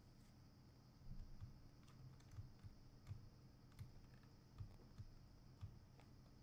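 Faint, irregular clicks of a computer mouse and keyboard, over a low steady hum of room or microphone noise.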